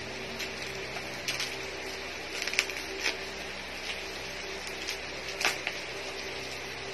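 Crinkling and rustling of thin wrapping as a small wrapped gift is unwrapped by hand: scattered short crackles, sharpest about two and a half seconds in and again about five and a half seconds in, over a steady background hiss.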